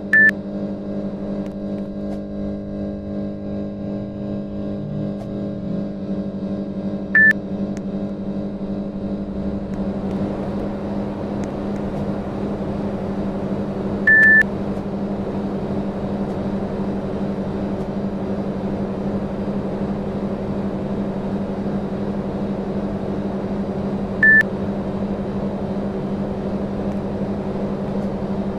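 Panasonic air conditioner running with a steady hum and airflow hiss that grows a little fuller about ten seconds in. It gives four short high beeps, the acknowledgement beep of a unit taking remote-control commands.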